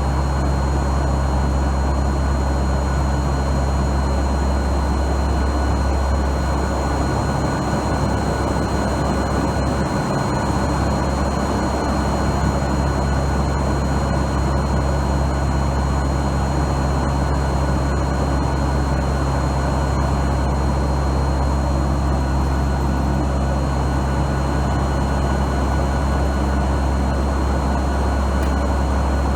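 Steady drone of a NOAA P-3 Orion hurricane hunter's four turboprop engines and propellers heard inside the cabin: a strong low hum under a wash of noise, with a few thin, steady high whines.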